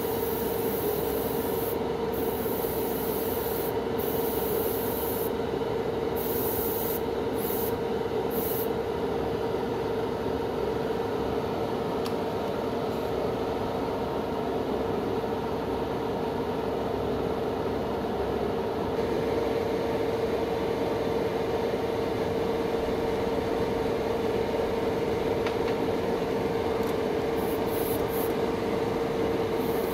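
Small airbrush compressor running with a steady hum, while the airbrush hisses in short on-off bursts through the first nine seconds and again near the end.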